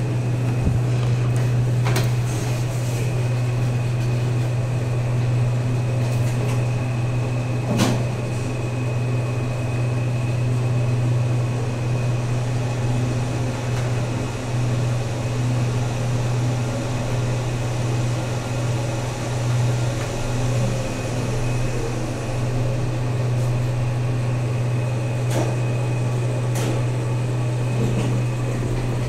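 Cargo elevator car in operation: a steady low hum with a few sharp clicks, the clearest about eight seconds in.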